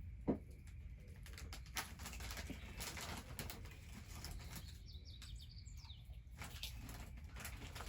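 Wood fire crackling with irregular pops, a sharp knock just after the start, and a quick run of high bird chirps about five seconds in.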